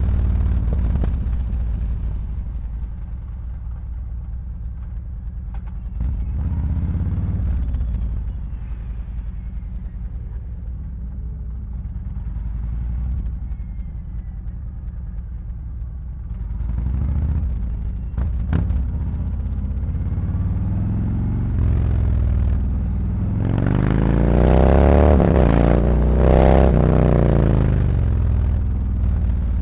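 Harley-Davidson Road Glide's V-twin engine running through SuperTrapp slip-on mufflers, a low, steady exhaust rumble at low revs. Near the end it revs up twice in quick succession, the pitch rising with each pull.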